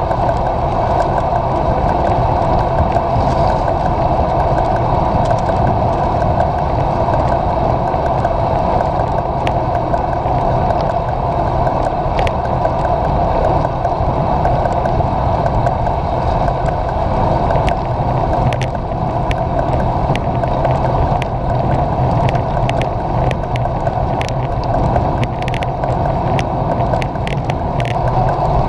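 Steady wind and rolling noise picked up by a camera mounted on a road bicycle's handlebars while riding, the tyres running on wet asphalt. Scattered light ticks come more often in the second half.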